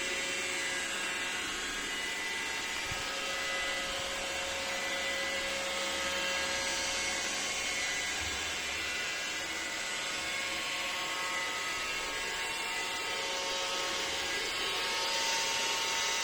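iRobot Roomba 606 robot vacuum running while it drives back to its charging dock: a steady motor whine with a hiss of suction and brushes, holding a few fixed tones.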